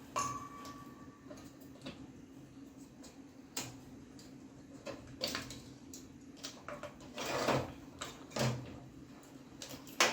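Irregular clicks, knocks and scrapes of desktop computer parts being handled as the case is taken apart, with cables unplugged and the motherboard taken out. A short ring just after the start and a longer scrape about seven and a half seconds in.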